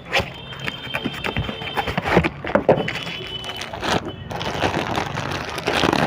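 Irregular knocks, taps and rustling from a new helical gear being unpacked and handled, with brief high metallic ringing early on and again about three seconds in.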